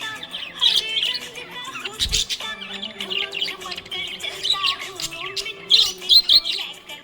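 Budgerigars chirping and warbling in a dense, continuous chatter of quick high chirps.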